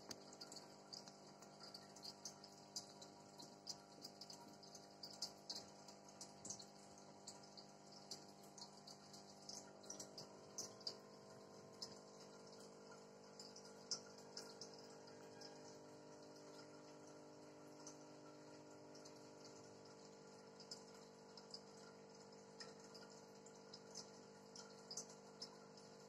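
Faint bubbling of an aquarium air stone, many small pops in quick succession, over a steady electric hum from the tank's aeration and filter equipment.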